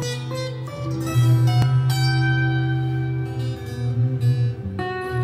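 Recorded plucked-string music with a heavy bass line, played through a wooden three-way tower loudspeaker driven by the amplifier under test.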